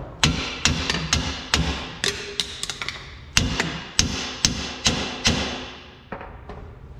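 Hammer blows on steel suspension parts: about a dozen sharp, irregular strikes, each ringing briefly, stopping near the end.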